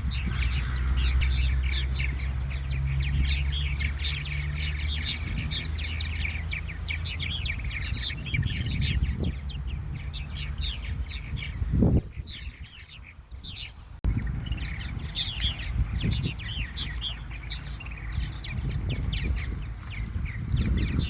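Purple martin colony twittering and chirping continuously, many birds calling over one another; the chatter thins out briefly about two-thirds of the way through. A low steady hum runs under the first several seconds.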